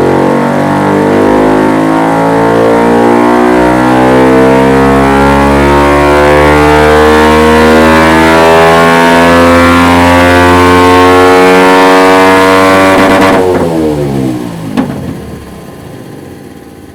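Kawasaki Ninja 125's single-cylinder four-stroke engine through a Dominator aftermarket exhaust on a dyno pull, revs climbing steadily under full throttle for about thirteen seconds. Then the throttle shuts, the revs drop quickly, and the exhaust gives a single sharp pop as the engine winds down.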